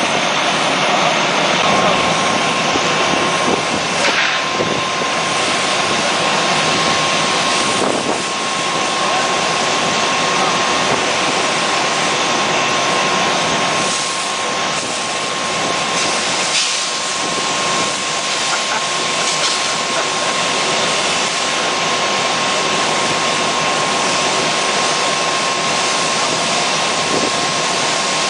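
Fire engine pumps running at pressure while hose and deck-gun water streams spray, a loud, steady rushing noise. A thin, steady high whine joins about two seconds in and holds.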